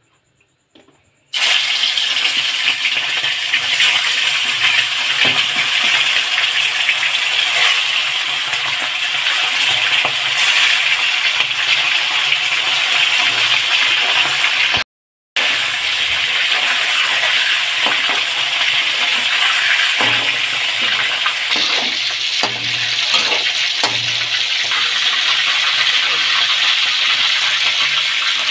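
Chicken pieces frying in hot oil in a steel kadai: a loud steady sizzle that starts suddenly about a second in. The sound cuts out briefly about halfway, and in the second half a steel ladle clicks and scrapes against the pan now and then.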